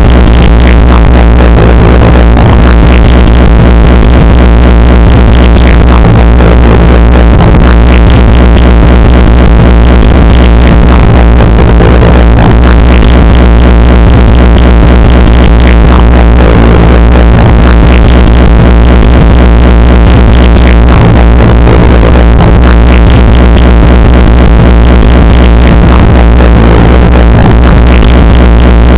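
Loud, dense synthesized electronic drone with a strong steady low hum and a faint swell returning about every five seconds, a computer-generated sound made from a spectrogram in Audacity.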